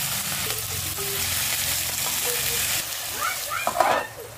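Tomatoes and green chillies sizzling in hot oil in a pan while a steel slotted spoon stirs them. A little under three seconds in, the sizzle suddenly drops as a steel plate is set over the pan as a lid, and there is a sharp knock near the end.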